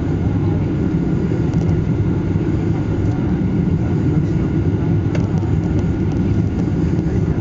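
Steady low rumble of a jet airliner's cabin on its low approach for landing: engine and airflow noise heard from inside the cabin, with a faint steady high whine above it.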